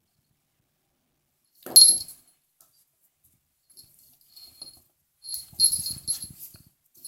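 A pet cat making short, noisy sounds in bursts: one loud one about two seconds in, a few faint ones, then a longer run near the end.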